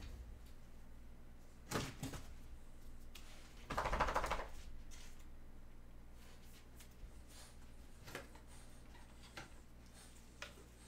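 Faint handling noises: a knock nearly two seconds in, a louder rattling burst about four seconds in, then a few light scattered clicks over a low steady hum.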